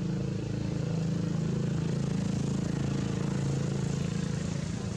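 A motor engine running steadily at an even speed, with a low hum.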